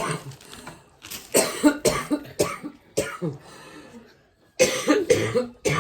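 A person coughing repeatedly in short bursts, with a brief lull about four seconds in before another run of coughs.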